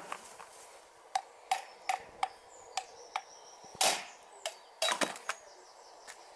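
A hammer striking the old outer CV joint on a Peugeot driveshaft to drive it off the shaft's splines: about a dozen sharp metallic knocks at an uneven pace, the loudest near the middle.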